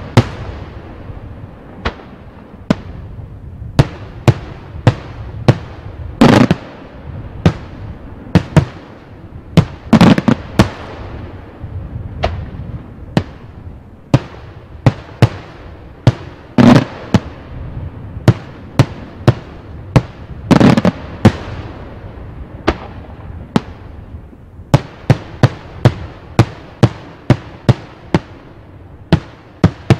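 Daytime fireworks display: an irregular series of sharp bangs from shells bursting overhead, a few heavier booms among them that echo. The bangs come faster and closer together near the end.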